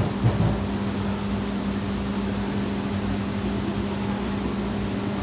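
Steady electrical hum of aquarium pumps and filtration running in a room of display tanks, with a couple of soft knocks just after the start.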